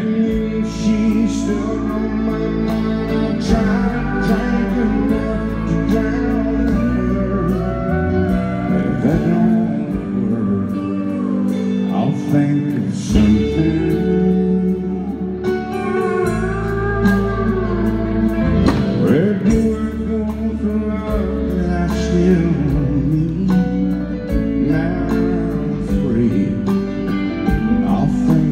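Live country music played by a small band with guitars, with a lead line of sliding, bending notes and singing at times.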